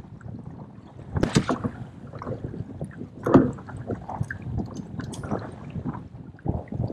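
Wind and water around a kayak, with irregular knocks and clicks as a halibut is handled and a metal cable fish stringer is threaded through it; the strongest knocks come about a second in and about three seconds in.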